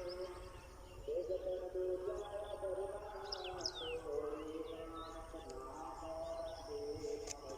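Small birds chirping, with short sharp calls and quick downward-sweeping whistles, over a village background of low rumble and a distant human voice holding drawn-out notes.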